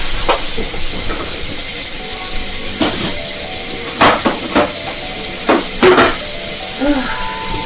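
Food sizzling in a frying pan, a steady hiss, with about six short clinks and knocks of dishes and utensils.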